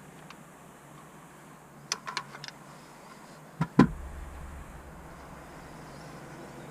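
Metallic clicks and clacks of an AR-15 rifle being handled: a quick run of small clicks, then two sharp clacks about a fifth of a second apart, the second louder, like the action being worked.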